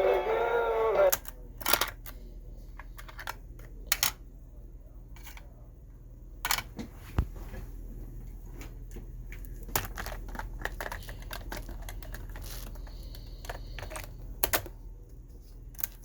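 A snatch of music cuts off about a second in. It is followed by a string of irregular sharp mechanical clicks and knocks over a steady low hum.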